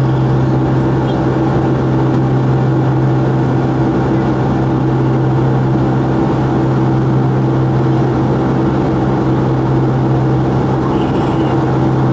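Cabin drone of a Boeing 757-200's Pratt & Whitney turbofan engines, heard from a seat beside the engine: a steady rushing noise over a strong low hum that holds one pitch.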